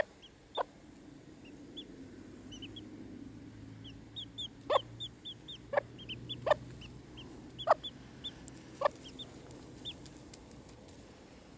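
Miniature Cochin chicks peeping: many short, high cheeps, with a few louder, sharp calls about a second apart.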